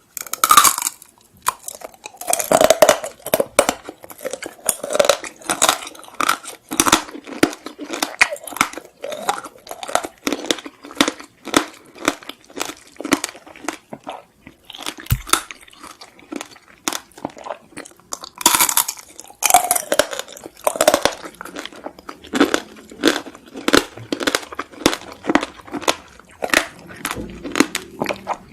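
Close-miked crunching and chewing of Korean sweets, a dense run of crisp crunches, with a loud bite at the start and another about two-thirds of the way through.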